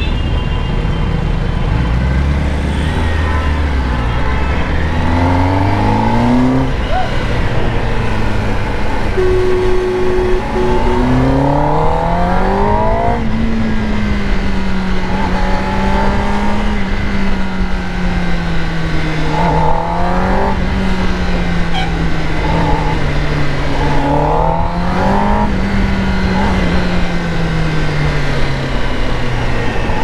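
Kawasaki Ninja ZX-10R's inline-four engine pulling up through the revs in a few rising sweeps, then running at moderate revs that rise and fall gently, over steady wind rush.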